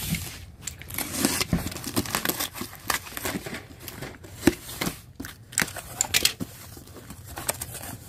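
Box cutter slitting packing tape on a small cardboard box, with the cardboard flaps rustling, scraping and knocking as the box is turned and pulled open: an irregular string of sharp clicks and scrapes.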